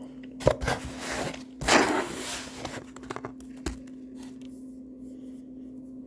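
Rustling and pouring of a bag of play sand being handled, in two bursts about a second long, then a single sharp click. A faint steady hum runs underneath.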